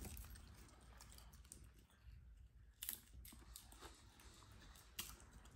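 Faint crunching of plain popcorn being chewed, with a few sharper crunches around the middle and again near the end.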